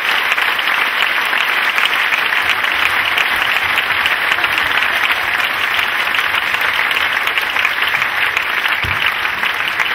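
Circus audience applauding steadily, a dense, even clapping of many hands.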